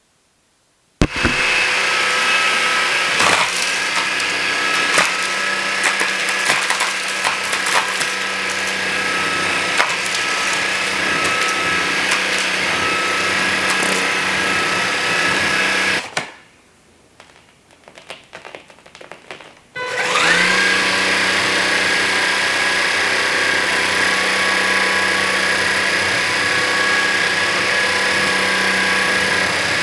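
Levoit LVAC-200 cordless stick vacuum running at full suction, with many sharp clicks and crackles of Cheerios being sucked up and rattling into it. About halfway through, the motor cuts out for a few seconds with a few light rattles, then starts again with a short rising whine and runs steadily.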